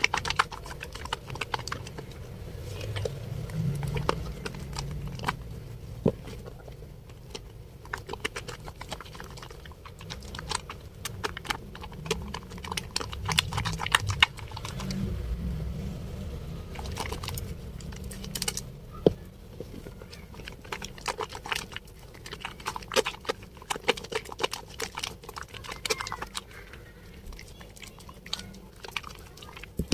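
A wet bar of Dettol soap being rubbed and lathered, with dense, irregular wet crackling and clicking of the foam.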